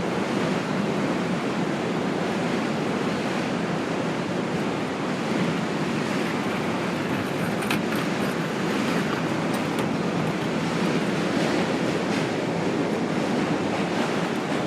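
Steady roar of city street traffic, an even wash of noise with a few faint clicks about halfway through.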